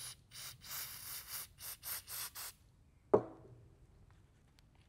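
Aerosol solvent can spraying onto a rag in a quick series of short hisses, then one sharp knock about three seconds in as the can is set down on the bench. Faint rubbing follows as the rag wipes residue off the engine's intake port.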